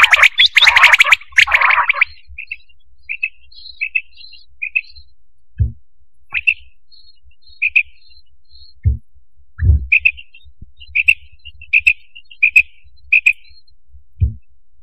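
Quail (batair) calling: a loud run of rapid calls for the first two seconds, then a string of short, soft high chirps. Four brief dull low thumps come in among them.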